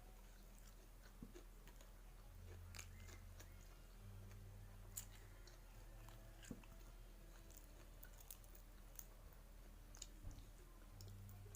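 Faint close chewing of raw papaya leaves and fried tilapia, with scattered small crunches and mouth clicks.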